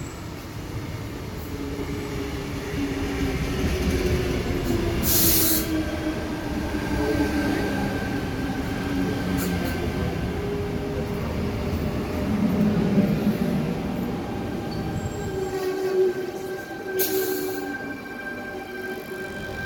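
Sydney Trains T set (Tangara) electric train pulling into the platform and slowing, its rumble growing louder under several steady whining tones that sag slightly in pitch. There are two short bursts of air hiss, about five seconds in and again near the end. The rolling rumble dies away near the end as the train comes to a stand.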